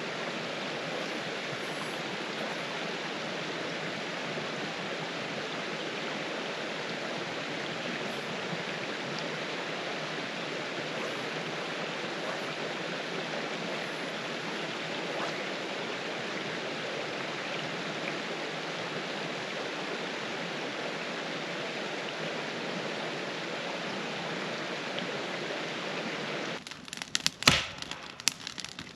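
River water running steadily over rocks, an even rushing sound that cuts off suddenly near the end, followed by a few sharp clicks and knocks.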